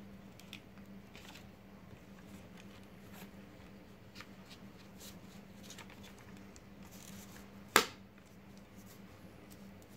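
Scratch-off lottery ticket being scratched in short, faint strokes over a low steady hum, with one sharp click about eight seconds in.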